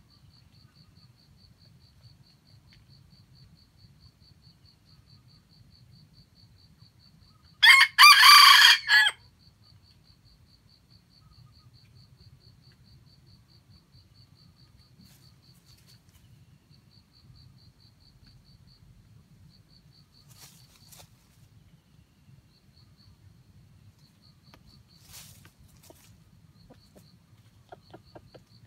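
A junglefowl rooster crows once, loud and short, about eight seconds in. A steady, fast insect ticking continues underneath.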